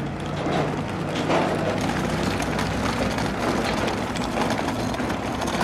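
Several wheeled suitcases rattling steadily as they are pulled over cobblestone paving, with a low steady hum beneath.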